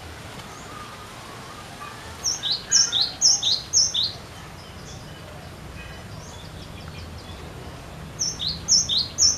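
Cinereous tit (glatik batu) singing a rapidly repeated two-note phrase, a high note dropping to a lower one. It sings the phrase about four times in a row two seconds in, then three more times near the end.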